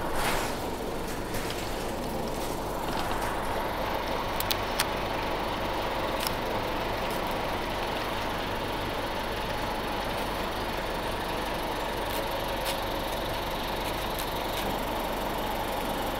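Detroit Diesel Series 50 four-cylinder diesel of a 1996 Nova Bus RTS-06 transit bus running steadily, with a level whine. A hiss fades away over the first few seconds, and a few sharp clicks come later.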